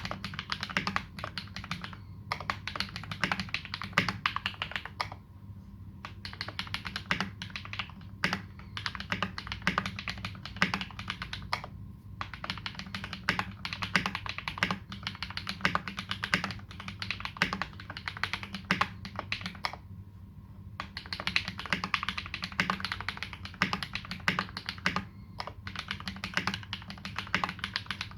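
Continuous typing on a KBD75v2 custom mechanical keyboard fitted with lubed Holy Panda tactile switches and GMK Dolch keycaps: a dense, irregular clatter of keystrokes, with short pauses about five, twelve and twenty seconds in.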